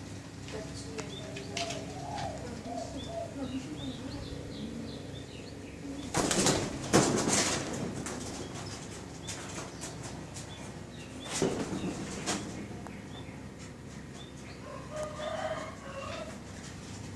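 Pigeons in a loft: two loud flurries of wing-flapping, one about six seconds in and a shorter one near the middle, between bouts of low cooing.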